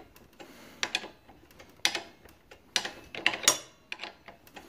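Irregular sharp metallic clicks and clinks of a wrench working on the tight mounting bolts of a motorcycle's front brake caliper.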